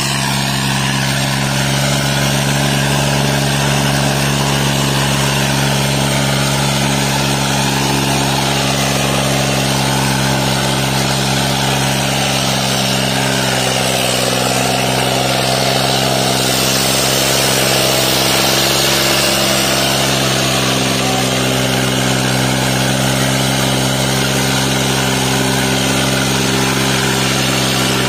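New Holland 3630 tractor's diesel engine running steadily close by.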